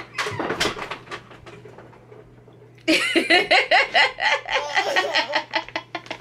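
A woman laughing heartily in a run of quick bursts, starting about three seconds in.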